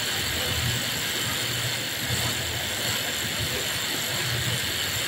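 Steady machine hum and hiss of a garment factory floor, with a low drone that swells a little now and then.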